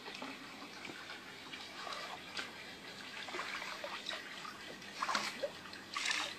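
Water trickling and lapping with small drips, then two short, louder splashes about five and six seconds in.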